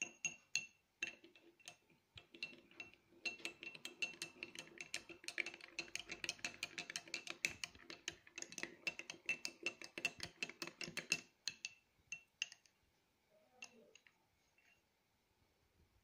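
Metal spoon stirring quickly in a glass of liquid, clinking against the glass several times a second, then a few last taps before stopping about twelve seconds in.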